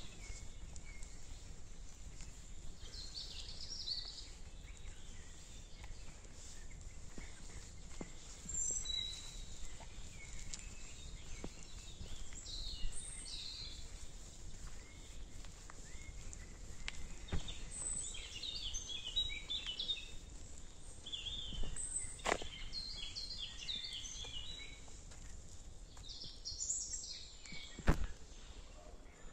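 Forest ambience: several songbirds chirping and calling on and off, over footsteps along a woodland path. A couple of sharp clicks or snaps stand out, the loudest near the end.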